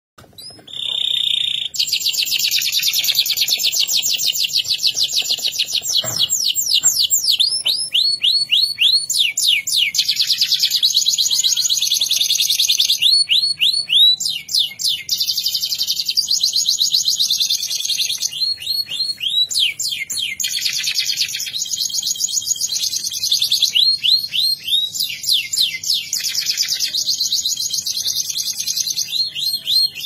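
Domestic canary singing non-stop: long fast trills alternating with runs of repeated, quickly falling notes, switching to a new phrase every few seconds.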